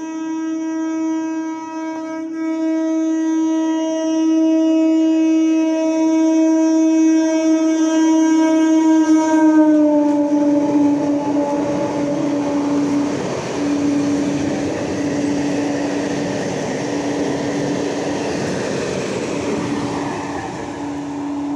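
Suburban electric local train passing at full speed, sounding its horn in one long steady note that dips slightly in pitch as the front goes by, about ten seconds in. Then the rush and clatter of the coaches on the rails follows, with the horn continuing in long blasts broken by short gaps.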